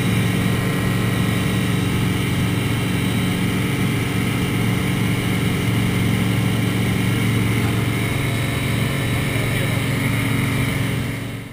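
Light floatplane's piston engine and propeller running steadily in cruise, heard from inside the cockpit, fading out at the very end.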